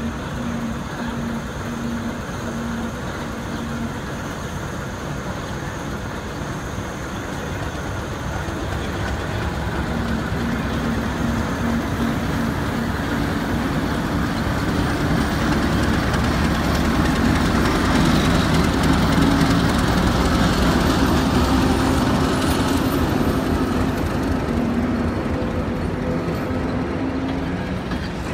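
Diesel locomotive of an Albanian Railways train, a ČKD T669-type, running as the train pulls out of the station. Its engine note rises and the sound grows louder from about a third of the way in as it passes close by, and near the end the coaches roll past.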